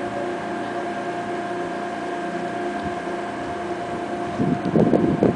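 A steady machine hum holding one pitch. About four seconds in, rough, uneven rumbling noise joins it.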